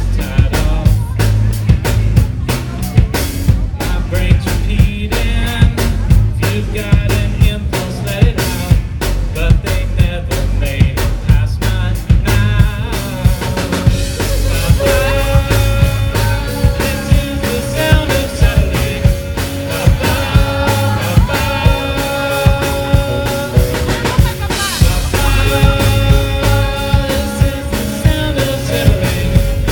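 Live rock band playing: a fast drum-kit beat drives the first half, and held pitched chords from the band come in over the drums about halfway through.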